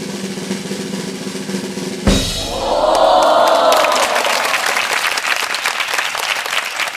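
Drum roll sound effect that ends in a crash about two seconds in, followed by a cheer and a dense run of applause.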